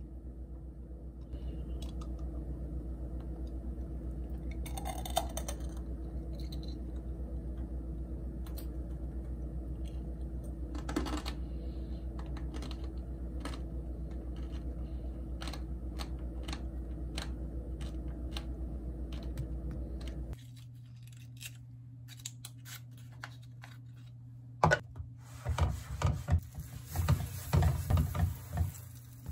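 A steady low hum with a few short clicks as skewers of candied strawberries are handled on a wire rack. About 20 seconds in, this gives way to a different hum, then a spatula clicking and knocking against a nonstick frying pan on an induction cooktop as slices of bread are turned.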